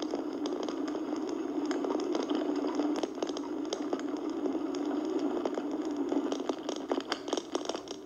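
Steady road noise from a moving vehicle, with frequent rattling clicks that come thicker near the end.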